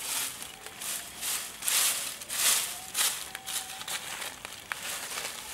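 Dry leaf litter and twigs crunching and rustling under hands working the ground, in repeated strokes about two a second.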